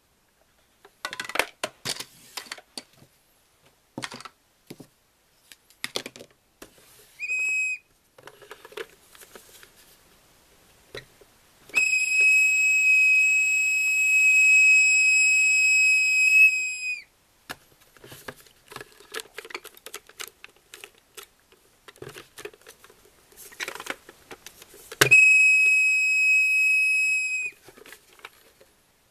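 Hard plastic toy pieces clicking and knocking as they are handled, and a Fisher-Price toy tea pot giving a steady high whistle three times: a short toot about seven seconds in, a long whistle of about five seconds midway, and a shorter one near the end.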